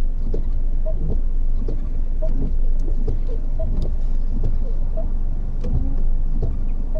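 2005 Chrysler PT Cruiser's four-cylinder engine idling steadily, with short faint squeaks and light clicks scattered over the hum.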